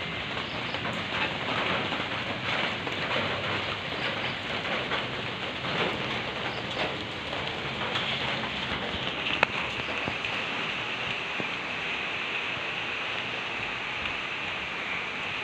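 Steady rain falling, an even hiss. A single sharp click about nine seconds in, after which the hiss becomes smoother and more even.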